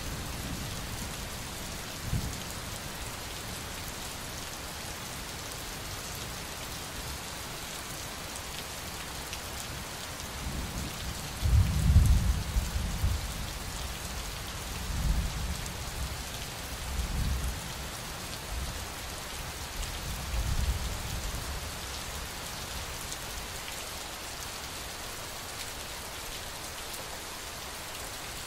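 Steady rain hiss with rolls of low thunder: the biggest rumble swells about eleven seconds in and peaks around twelve, followed by several weaker rumbles over the next ten seconds.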